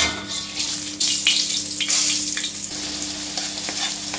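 Hot oil sizzling in a steel wok as sliced onions fry, flaring up sharply at the start, about a second in and again around two seconds, then settling to a steady sizzle. A steady low hum runs underneath.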